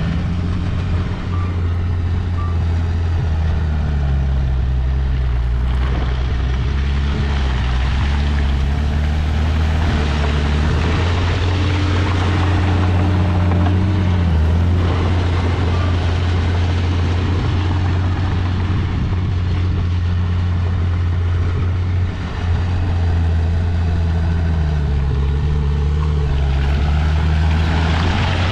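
Heavy earthmoving machinery's diesel engine running hard and steadily, its pitch sagging and recovering a few times, with a brief dip in level a little past the middle.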